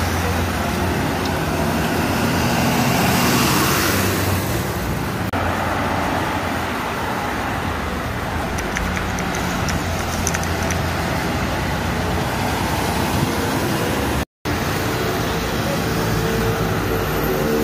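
Busy road traffic: city buses pulling past with their diesel engines droning low, over the steady tyre and engine noise of passing cars and motorcycles. The sound drops out briefly about fourteen seconds in, then another bus engine comes in.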